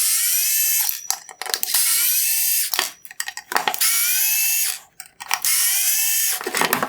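Power screwdriver backing out four T15 Torx screws one after another: four whining runs of about a second each, with short clicky pauses between them as the bit is moved from screw to screw.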